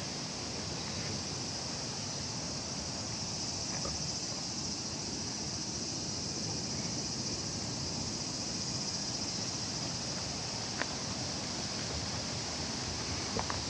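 Steady high-pitched insect chorus over a low rumble of outdoor noise, with a couple of faint clicks near the end.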